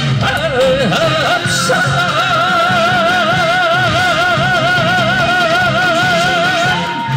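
A man singing a Korean song into a microphone over backing music. After a short bending phrase he holds one long note with a wide, even vibrato for about five seconds, then steps up to a higher held note near the end, the closing note of the song.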